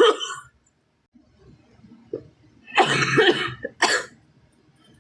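A sick girl coughing: a cough dying away at the start, then a longer bout of coughing about three seconds in that ends in one short, sharp cough.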